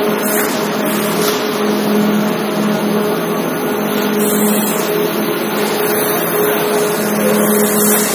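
Brick-making machinery (clay extruder, mixer and belt conveyors) running: a loud, steady mechanical drone with a constant low hum.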